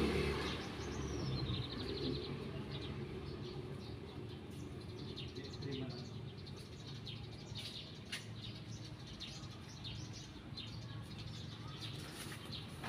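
Birds chirping in short, scattered high notes, with one falling trill about a second in.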